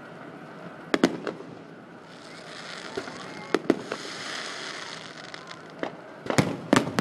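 Aerial fireworks bursting in sharp bangs: a pair about a second in, another pair in the middle and a louder cluster near the end. A stretch of hiss runs through the middle.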